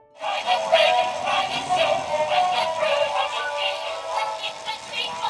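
A cheerful song with a sung melody and a steady beat, played by the musical tea cart toy, begins just after a short silence.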